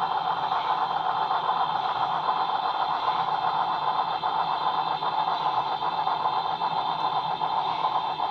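Sn3-scale model Shay geared locomotive running with a train of log cars: a steady mechanical rattle and clatter from the moving model train.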